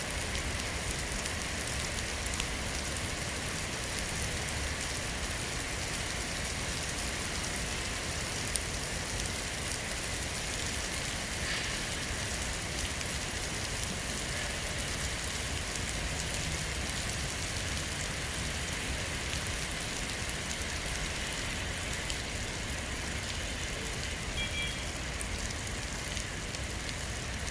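Steady rain falling, a dense even patter of drops on hard surfaces. A brief high tone sounds near the end.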